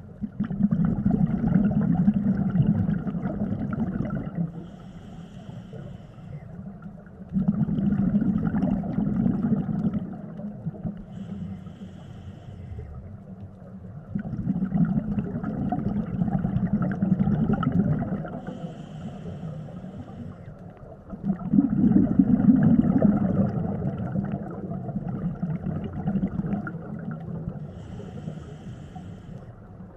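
Scuba diver breathing through a regulator: a short hiss of the demand valve on each inhale, then a long, loud burble of exhaled bubbles, in a slow cycle of about seven seconds, four breaths in all.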